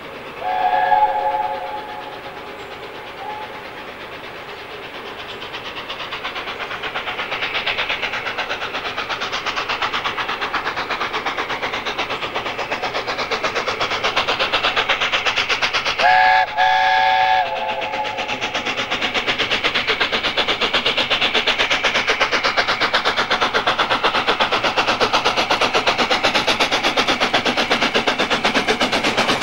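LNER A4 Pacific No. 60007's three-note chime whistle sounds about half a second in for a couple of seconds, and again about 16 s in as a shorter blast with a brief break. Between and after the whistles, the steam locomotive's rapid exhaust beats grow steadily louder as it approaches.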